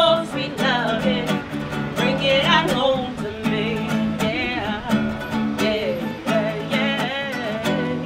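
A woman singing a bending melody over her own strummed guitar chords, with a steady strumming rhythm.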